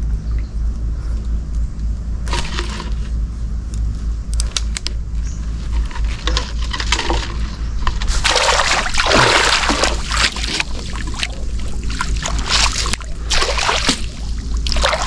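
Water splashing and sloshing as a fish trap is rinsed and worked about in floodwater, sporadic at first and then dense and continuous from about halfway through, over a steady low rumble.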